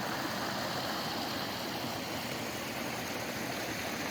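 Running water, a steady rush like a small stream flowing.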